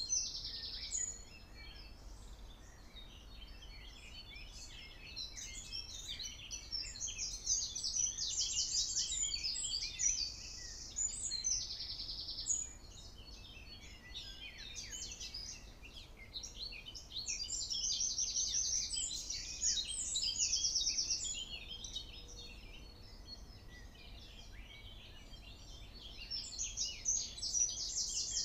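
Songbirds singing: a busy chorus of high chirps and fast trills that swells and fades several times.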